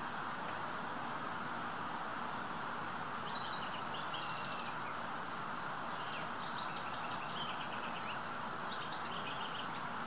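Several wild birds chirping and giving short falling whistles, busier in the second half, over a steady high insect buzz and outdoor background noise.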